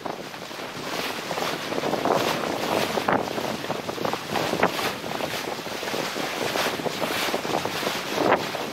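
Water rushing and splashing along the hull of a Lancer 25 sailboat under sail, in uneven surges, mixed with wind buffeting the microphone.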